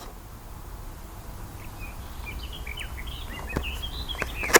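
Outdoor ambience with a steady low rumble, and small birds chirping in quick short calls in the second half. A few sharp clicks come near the end, the loudest one right at the close.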